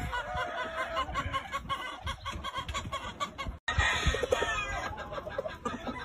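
Gamefowl hens and roosters clucking, with many short, repeated calls overlapping. The sound drops out for an instant a little past the middle.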